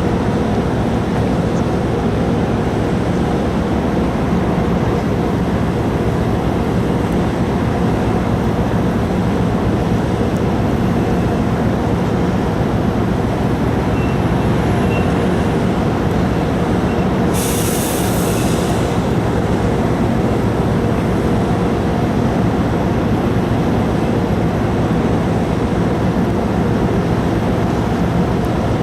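Car ferry Orange 7's engines and machinery running, heard as a loud steady low drone with a faint hum tone. A short hiss cuts in about seventeen seconds in.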